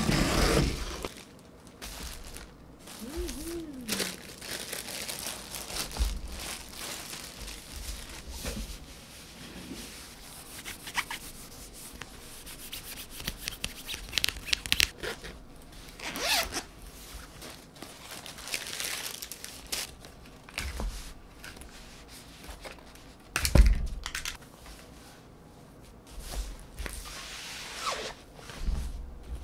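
Unboxing handling sounds: a cardboard box being opened, then the rustling and crinkling of a padded nylon laptop pouch being handled, with bursts of zipper noise and one sharp knock about two-thirds of the way through.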